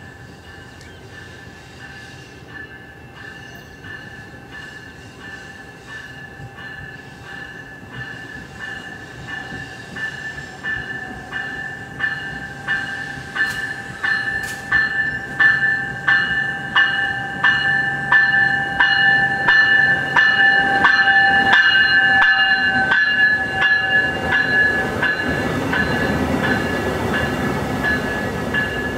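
A locomotive bell rings steadily as VIA Rail's Siemens Charger locomotive 2211 pulls into the station, its strokes growing louder as it approaches. Near the end the low rumble of the passing locomotive and train swells under the bell.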